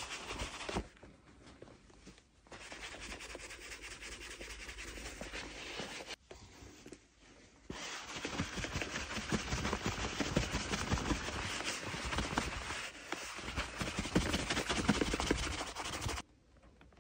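Wool buffing glove rubbed briskly back and forth over leather boots, a continuous soft rubbing, buffing a freshly set waxy shoe cream up to a shine. It pauses briefly about a second in and again around six to seven seconds in, and is louder in the second half.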